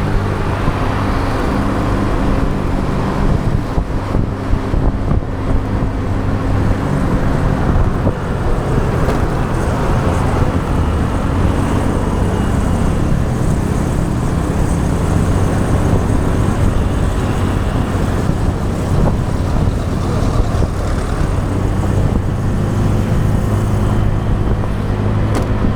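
Motorbike engine running at a steady pitch, heard from the rider's seat under road and wind noise. The engine hum sinks into the road noise through the middle and comes back clearly near the end.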